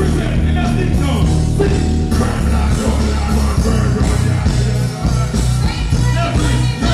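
Live dancehall performance through a stage sound system: a bass-heavy riddim with the deejay's vocals over it.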